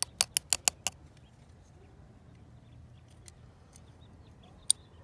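A quick run of sharp metallic clicks, about five in under a second, then a single click near the end. They are most likely the folding knife's steel blade tapping on the concrete.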